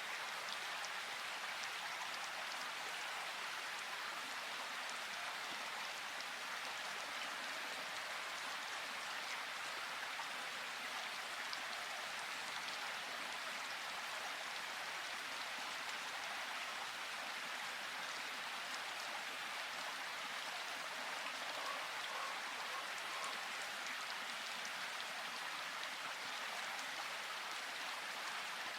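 Steady rain falling, a constant even hiss with faint scattered drop ticks.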